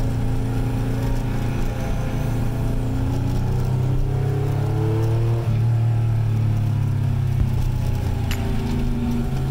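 Car engine accelerating, its pitch rising, with a sudden drop about five and a half seconds in like a gear change before it climbs again.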